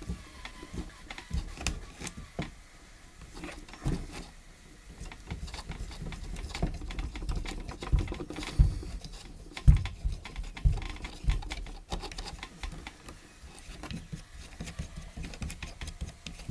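Tap locking nuts being screwed on by hand under an acrylic bath: scattered small clicks and rubbing of hand and nut on the tap tails, with a few dull knocks against the bath about halfway through.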